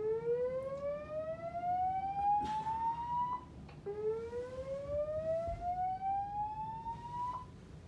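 Building fire-alarm voice-evacuation system sounding its slow-whoop tone: a rising sweep lasting about three and a half seconds, heard twice with a short gap between.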